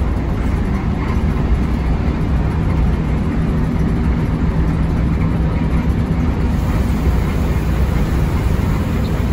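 Intercity bus's engine running steadily at cruising speed, a continuous low rumble mixed with road noise, heard inside the driver's cab.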